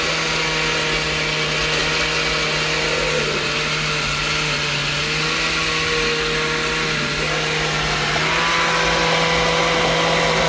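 Oster countertop blender's motor running steadily as it purées a thick sofrito of peppers, cilantro and recao in its glass jar. Its pitch sags briefly twice under the load and rises a little near the end, then the motor cuts off suddenly.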